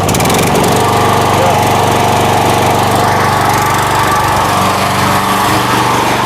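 Towable backhoe's engine running loud and steady, freshly started. Its note shifts slightly about five seconds in.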